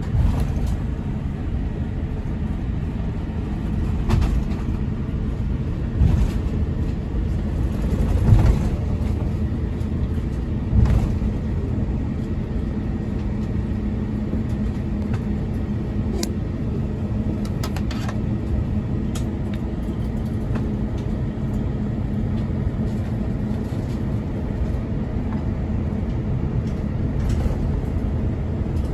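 Cabin noise of an Airbus A350-941 taxiing: a steady low rumble of its Rolls-Royce Trent XWB engines at taxi power and the rolling airframe, with a few short knocks in the first ten seconds or so.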